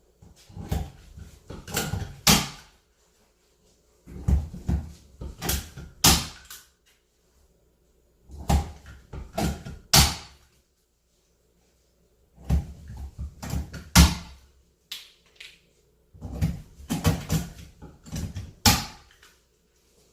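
Work on Douglas fir plywood panels: sharp wooden knocks and bangs in five short bursts, each of several hits with the loudest near its end, and silence between the bursts.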